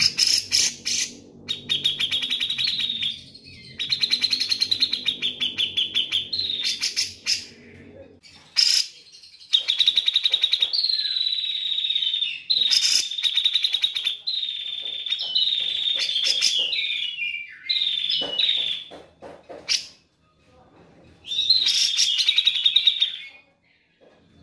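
Grey-cheeked bulbul (cucak jenggot) singing: a series of rapid, buzzy trilled phrases, each a second or two long, broken by short pauses, with a longer silence shortly before the end.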